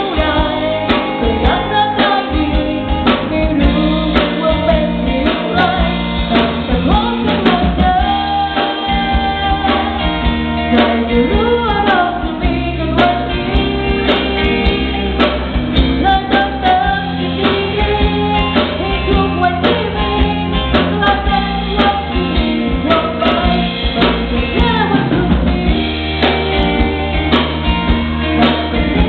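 Live rock band playing a song: a woman sings lead over electric guitar, bass guitar and a drum kit keeping a steady beat.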